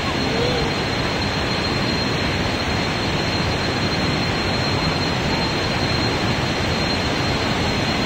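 Loud, steady rush of water pouring down the Thi Lo Su waterfall.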